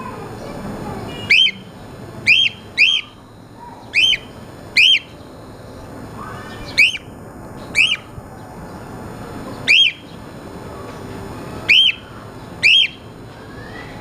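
Cockatiel giving short, sharp chirp calls, about ten of them, mostly in quick pairs, each one rising and falling in pitch.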